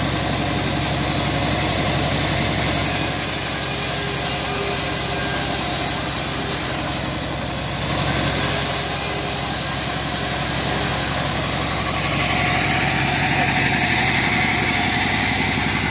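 Homemade bandsaw sawmill running steadily, its engine giving a constant low hum. Twice a high hiss comes and goes as the blade rips through teak.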